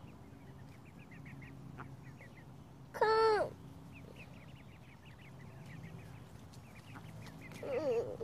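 Ducklings peeping, a steady scatter of quick, high little chirps. About three seconds in there is one loud, drawn-out cry that rises and falls in pitch.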